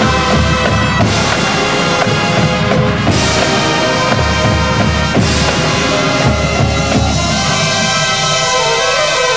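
Marching band playing loudly: sustained brass and wind chords that change every second or two, over low drum beats.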